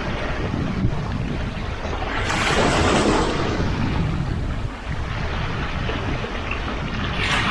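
Sea waves washing onto the shore, one swelling wash about two seconds in and another near the end, over a steady low rumble of wind buffeting the microphone.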